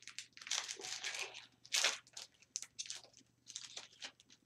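The wrapper of an Upper Deck hockey card pack being torn open and crinkled by hand: a run of irregular crackles, loudest about two seconds in, thinning out toward the end.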